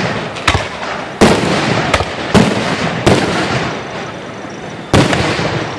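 Aerial fireworks shells bursting overhead: six sharp booms at uneven spacing, each trailing off in an echo, with a longer gap before the last one near the end.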